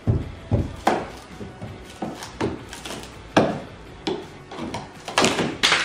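A flathead screwdriver prying and scraping at a Honda Civic's rusted, filler-covered rear wheel-arch lip, chipping body filler off the steel: a run of sharp, irregular clicks and knocks, with a longer rough scrape a little after five seconds in.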